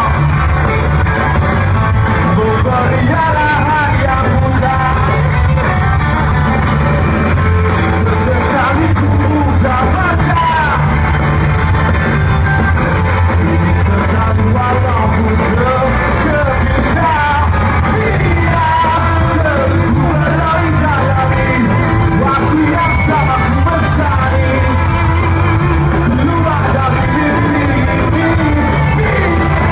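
Live rock band playing loudly: electric guitars, bass guitar and drums under a male lead vocal.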